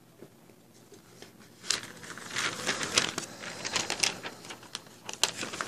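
Paper posters rustling and crinkling as they are pulled out and handled, in quick irregular crackles that start about a second and a half in.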